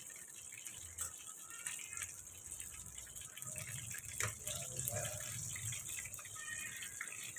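Chicken wontons deep-frying in hot oil in a kadhai: a steady sizzle with fine crackling as the oil bubbles around them. A single sharp click sounds about four seconds in.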